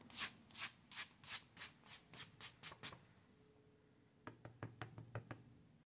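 Faint, rhythmic rubbing strokes of a hand pressing velvet flocking powder onto a small model seat over paper, about three strokes a second. They pause about three seconds in, then a few more strokes come near the end.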